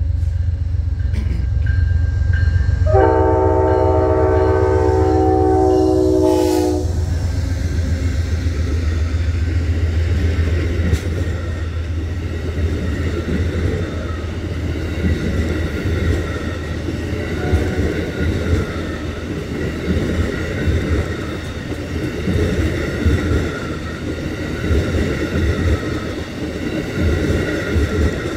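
Amtrak passenger train passing slowly under a speed restriction. The diesel locomotive rumbles as it nears and gives one chord horn blast of about three seconds, starting about three seconds in. Then the passenger cars roll by on the rails.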